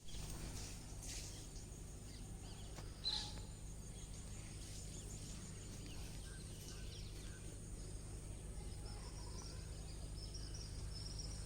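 Quiet outdoor rural ambience: a steady low hum under faint, scattered bird chirps, with one sharper chirp about three seconds in.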